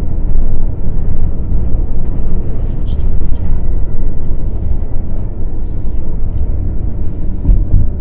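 A car driving, heard from inside the cabin: a steady low rumble of engine and tyres on the road, with a few faint ticks.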